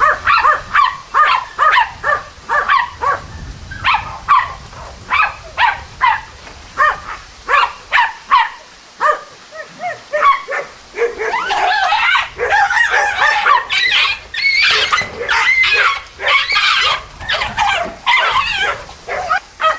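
Jagdterrier barking at a wild boar it is holding at bay: a rapid series of sharp barks, two or three a second. From about eleven seconds in they run together into a dense, almost unbroken string of high yapping as the boar breaks away and the dog chases it.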